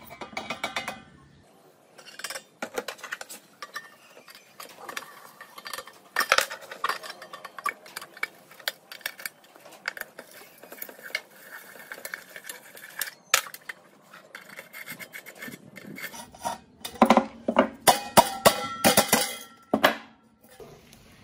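Small metal parts clinking, knocking and scraping against one another in a long irregular run of taps, busiest near the end.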